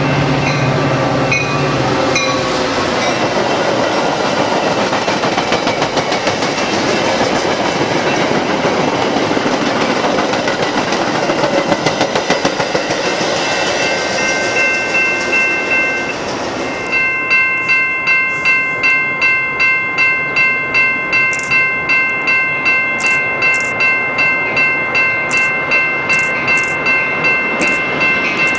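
A Metra diesel locomotive and its bilevel commuter cars passing at speed: the engine's low rumble fades within the first couple of seconds and the wheels rush and clatter by, dying away about halfway through. Then a railroad crossing bell rings steadily, a little under two strikes a second, warning of the next train approaching.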